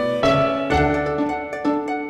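Background music of plucked string notes, a light melody with a new note about every half second.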